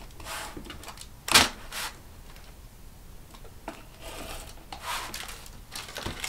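Rotary cutter blade rolling through paper-backed fusible web along an acrylic ruler: several short scratchy strokes, with a sharp knock, the loudest sound, about a second and a half in.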